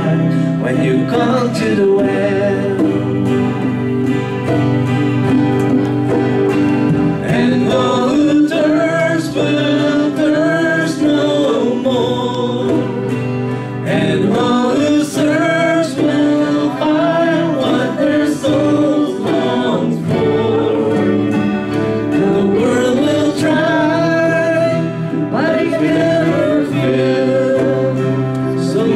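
Live worship song: a man singing into a microphone, accompanied by acoustic guitar and keyboard.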